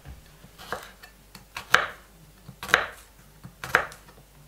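Kitchen knife slicing peeled garlic cloves on a wooden cutting board: four sharp chops about a second apart, with lighter taps in between.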